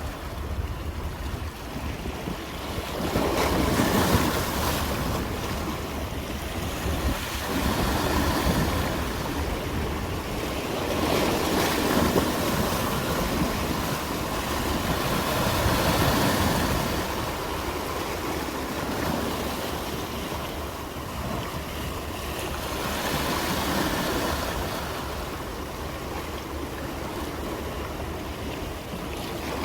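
Sea waves breaking and washing ashore. The rush of surf swells and ebbs every few seconds.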